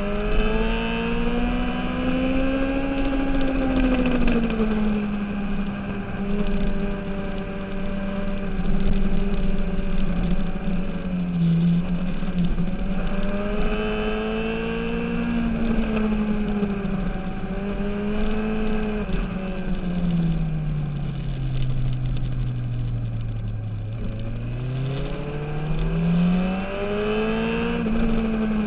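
Sport motorcycle engine heard from onboard at track speed, its pitch rising and falling as the rider opens and closes the throttle through corners. The engine note drops low for a few seconds about two-thirds of the way in, then climbs again near the end.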